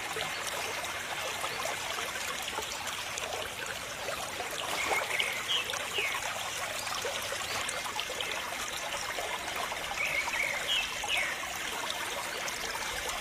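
Steady trickle and spray of water from a homemade mini water pump's thin plastic tube, with a few short high chirps about every five seconds.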